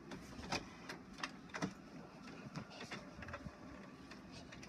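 HP all-in-one inkjet printer at work, its mechanism giving a run of irregular clicks and clatters.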